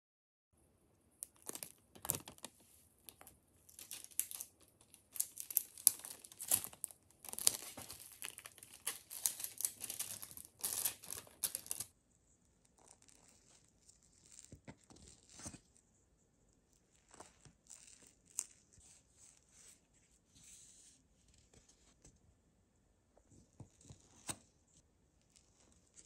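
Plastic film collar being peeled off the side of a soft mousse cake, crackling and crinkling. Dense and loudest from about a second in until about halfway, then sparser, quieter crinkles.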